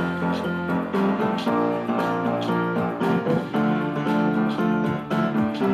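Instrumental break of a pop song: keyboard and guitar chords repeating in a steady rhythm, with no singing.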